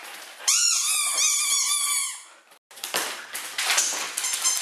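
Siberian husky giving a high, wavering howl-like vocalisation for about two seconds. After a brief break, a husky chews a plastic bottle: dense irregular crinkling and crackling of the plastic.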